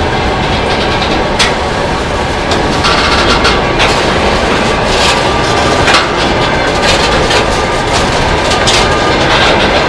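Freight train wagons rolling past close by: a steady, loud rumble of steel wheels on rail, with a run of sharp clicks as the wheels cross rail joints.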